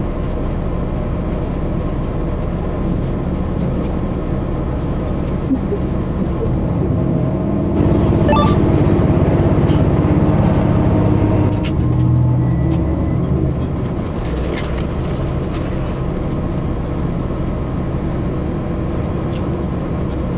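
Steady rumble and rail noise inside a train running at about 65 km/h. About eight seconds in, it swells into a louder rush for roughly four seconds as an oncoming JR Hokkaido 721 series electric train passes close alongside.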